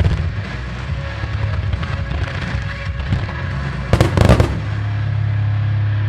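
Fireworks shells bursting, with a quick cluster of loud bangs about four seconds in. Rock music plays steadily over loudspeakers underneath.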